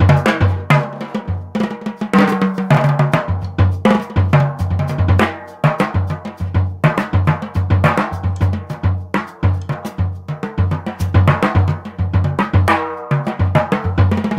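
Jazz drum kit solo played in steady time using only dry, short sounds: quick stick strokes on the snare and toms over a regular bass drum pulse, with no long ringing.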